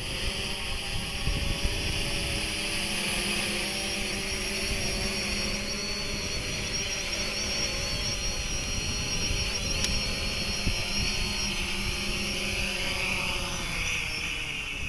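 FIMI X8 SE quadcopter drone's propellers whirring steadily as it descends. Near the end the whine shifts in pitch as the drone touches down and lands.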